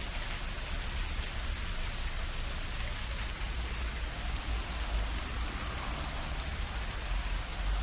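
Steady rain falling on the ground and surrounding surfaces, with occasional heavier drips from the rowan leaves overhead. A deep low rumble underneath swells in the middle and again near the end.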